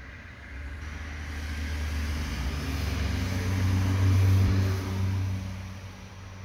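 A motor vehicle passing: a low engine hum that swells to its loudest about four seconds in, then fades away.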